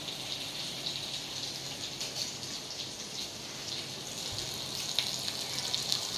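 Oil sizzling steadily in a kadai where garlic, tomatoes, green chillies and curry leaves are frying, with crackling pops that grow louder from about five seconds in.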